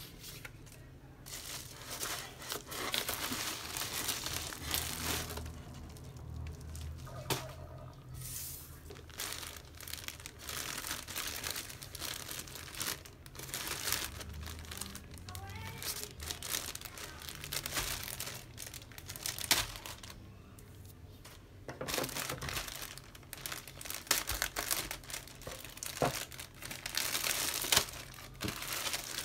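Plastic packaging crinkling and crackling in irregular handfuls as a clear poly bag of socks and a padded paper mailer are handled and the bag is pulled open.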